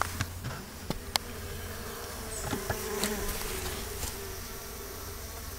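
Honeybees buzzing in the hive, a steady wavering hum, with a few sharp clicks over it.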